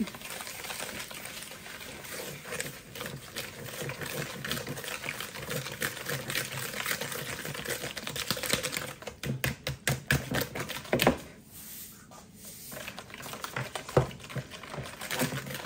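Wire hand whisk beating eggs and sugar in a mixing bowl, the wires clicking rapidly against the bowl. The beating slackens about two-thirds of the way through, then picks up again.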